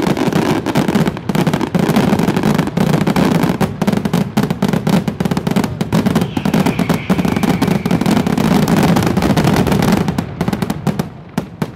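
Fireworks barrage: a dense run of rapid bangs and crackling over a low rumble, thinning out after about ten seconds to a few last single bangs.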